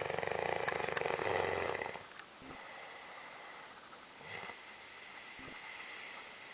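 A man snoring: one loud, rattling snore lasting about two seconds, then quieter breathing.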